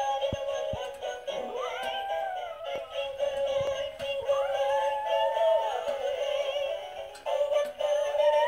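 A Lhasa apso howls along to a tinny Christmas carol played by musical plush toys. It gives three long howls, each rising, holding and falling, roughly every three seconds over the steady music.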